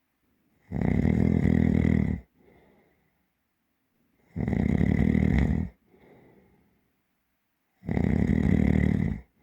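Deep, heavy snoring: three loud snores, each about a second and a half long and about three and a half seconds apart, each followed by a soft breath out.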